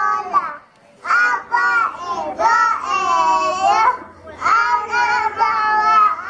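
Young children singing together into a handheld microphone: high voices in phrases with held notes, with a short break about half a second in.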